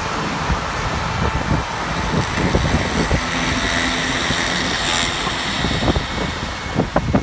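Road traffic and engine noise heard from a moving tour bus, with wind buffeting the microphone in irregular low thumps.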